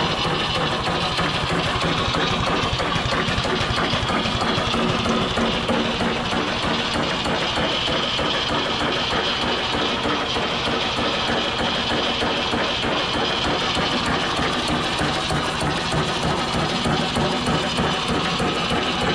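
A large old stationary engine running steadily.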